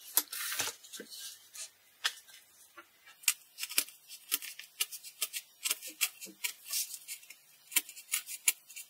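A sharp knife blade cutting along a circle in corrugated cardboard, a run of irregular sharp clicks and crackles, several a second, as the blade breaks through the flutes. It is the first cutting pass. A short rustle of the cardboard sheet being moved comes at the very start.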